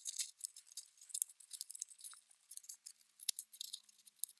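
Kinetic sand being pressed and packed by hand into a thin plastic blister-pack mould, giving a soft, irregular crackling and scratching.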